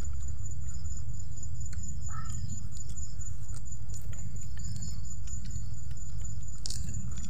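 An insect's steady, high-pitched trill over a continuous low rumble, with faint clicks of leaves and vegetables being handled.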